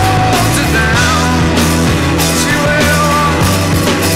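Rock music with a steady drum beat and a melody line that slides up and down in pitch.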